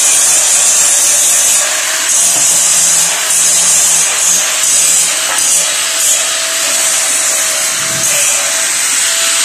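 Electric arm actuator of an automatic folding swing gate running as it drives the gate: a steady motor whine under a loud, high hiss that swells and fades about once a second.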